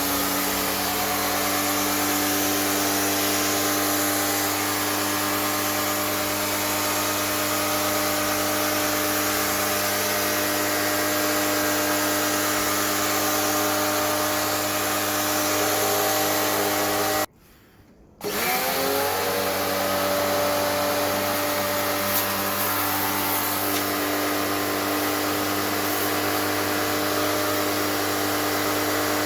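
Tacklife electric pressure washer running, a steady motor-pump whine over the hiss of the water jet. About 17 seconds in it cuts out for about a second, then spins back up with a rising whine and runs on steadily.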